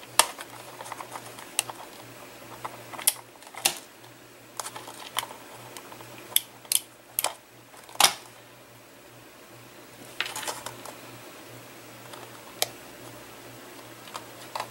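Scattered sharp clicks and taps of hand crafting on a cutting mat: a handheld glue dot roller being worked and then set down, the loudest tap about eight seconds in, with a brief crinkle of foil-covered paper about ten seconds in. A faint steady low hum runs underneath.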